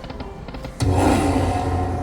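Poker machine game sounds: light ticking as the reels spin, then a loud electronic sound effect cuts in a little under a second in, a low hum under a bright, noisy sweep.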